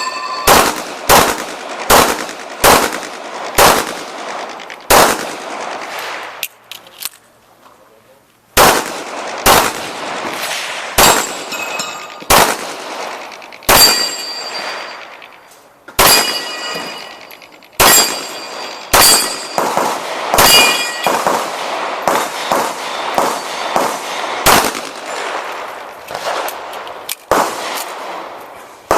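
Pistol shots fired in quick strings during a USPSA stage, with a gap of about two seconds a quarter of the way in. Several shots are followed by a short metallic ring, steel targets being hit.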